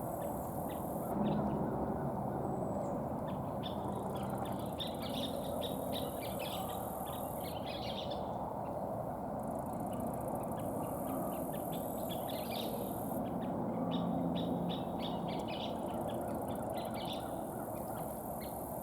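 Scissor-tailed flycatchers calling: irregular rapid clusters of short, sharp notes over a steady background rush. A high hiss switches on and off several times.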